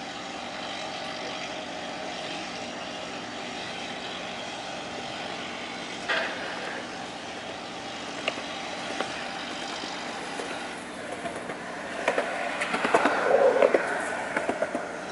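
Faint, steady hum of the crab boat Northwestern's diesel engines running at the dock. A sharp knock comes about six seconds in, and a louder burst of clattering knocks near the end.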